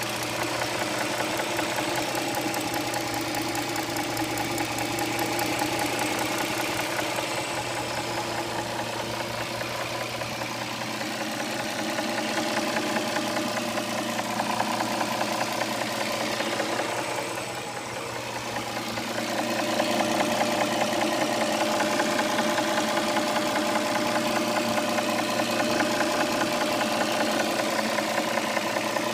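2007 Dodge Charger's 3.5-litre V6 engine running steadily with a fast, repetitive ticking knock, which the owner suspects comes from the lifters or rocker arms. The level dips briefly a little past halfway, then comes back slightly louder.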